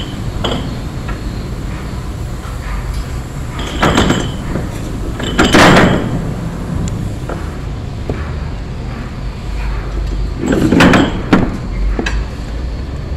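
Steady low machinery rumble, broken by three loud, short clattering noises about four, five and a half and eleven seconds in.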